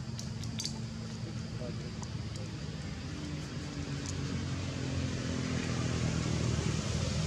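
Steady low motor-like hum with faint voices of people in the background, and a few short clicks in the first second.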